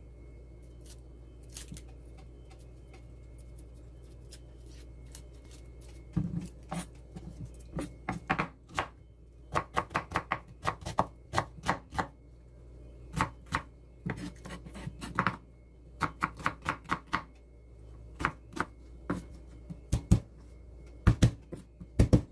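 Chef's knife chopping an onion on a wooden cutting board: sharp knocks in quick runs, starting about six seconds in. Before that only a low steady hum with a few light taps.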